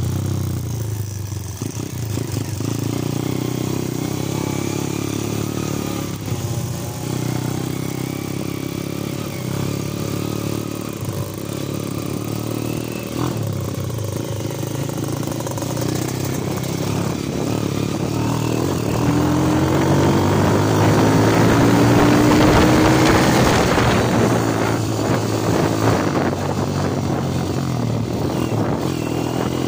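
Underbone motorcycle engine running under way, with a steady stack of engine tones. About two-thirds of the way through it rises in pitch and grows louder as the bike accelerates, then settles back.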